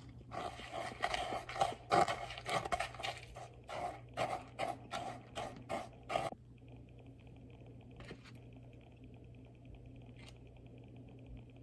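Seasoning crumbs poured from a plastic shaker container into panko in a foam bowl, then stirred with a plastic knife: rustling and scraping that turns into separate strokes, about two or three a second, and stops about six seconds in.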